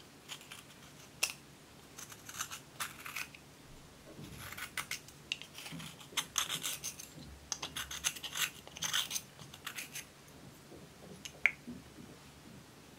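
A thin metal tool scraping and crumbling pressed eyeshadow out of a plastic compact: clusters of short, gritty scratches, with a single sharp click near the end.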